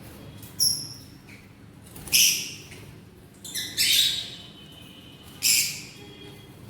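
Caged pet birds calling: a short thin chirp followed by three or four harsh, high squawks, one every second or two.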